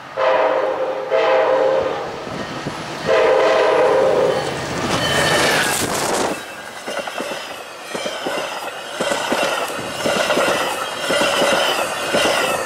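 Metra F59PHI diesel locomotive sounding its horn in long blasts as the train approaches at speed. From about six seconds in, a rushing blast as the train ploughs through a snow drift and its cars pass close by, with wheels clicking over the rail joints and the horn still sounding.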